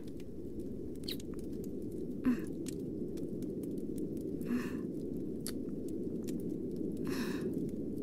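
Three soft kissing sounds from a woman's mouth close to the microphone, about two, four and a half and seven seconds in, over a steady low background rumble with faint scattered clicks.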